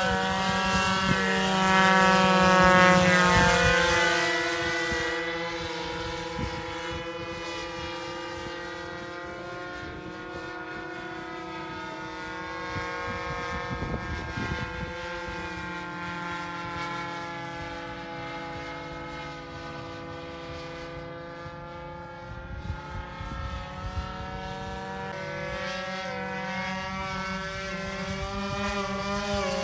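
Twin Evolution gas engines of a Phoenix Models Cessna 337 RC model, front and rear, droning steadily in flight. Loudest a few seconds in as the plane passes closest, then fading as it flies away and growing louder again near the end as it comes back.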